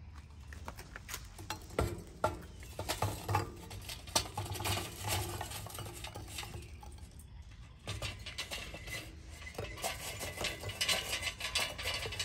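Lit charcoal clattering and clinking as it is tipped out of a metal chimney starter into clay yakitori grills: an irregular patter of many small knocks.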